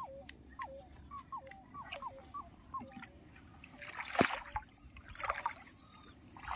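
Shallow lake water splashing twice, about four and five seconds in, the first the louder. Before that comes a run of about ten short falling chirps.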